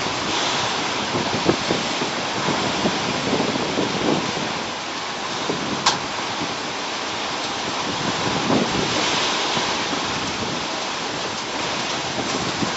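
Storm rain with gusting wind: a steady dense hiss, with gusts buffeting the microphone. A single sharp click comes about six seconds in.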